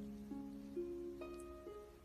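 Background music: a simple melody of held notes that change pitch about every half second.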